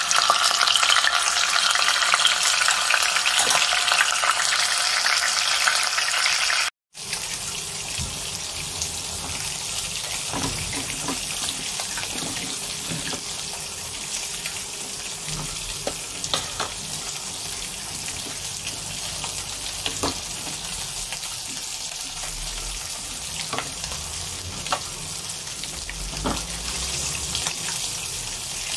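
Fish frying in hot oil in a pan: a loud, steady sizzle that cuts off abruptly about seven seconds in. After that, a quieter steady hiss with scattered pops and bubbles from a pot of vegetable soup simmering.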